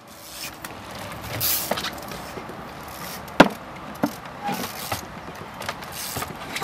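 Trials bike hopping and landing on wooden pallet obstacles: a series of sharp knocks and clatters of tyres and frame striking the wood, the loudest about three and a half seconds in.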